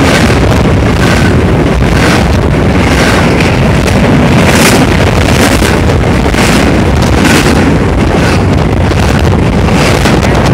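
Union Pacific double-stack container train passing close by at speed: a loud, steady rumble of steel wheels on rail with recurring clatters.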